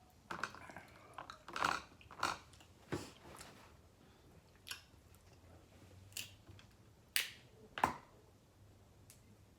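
Snow crab legs being snapped and their shells cracked by hand. A string of sharp, irregular cracks and clicks, about eight in all, with the loudest near the end.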